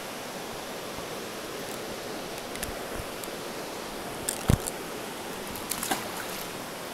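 Steady rush of stream water flowing over rocks. A sharp knock about four and a half seconds in and a few smaller clicks near six seconds.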